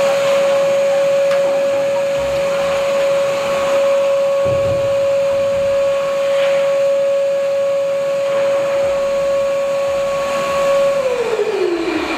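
Black & Decker BXVC30XTDE 1600 W wet/dry shop vacuum running with a steady whine while vacuuming. About eleven seconds in it is switched off, and the motor's whine falls in pitch as it spins down.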